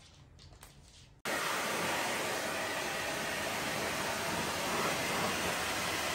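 Handheld electric hair dryer running, a steady rush of blown air that starts suddenly about a second in.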